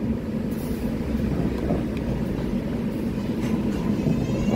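Steady hum and rumble of R188 subway trains at an elevated station; near the end a high electric whine starts and rises in pitch.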